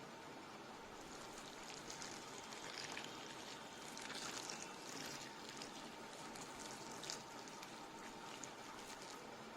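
Water running or being poured, a faint uneven hiss with a few brief knocks, over a faint steady hum.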